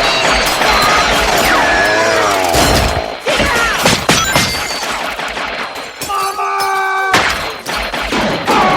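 Horror-film action soundtrack: loud crashing and shattering impacts mixed with music and wavering, gliding tones.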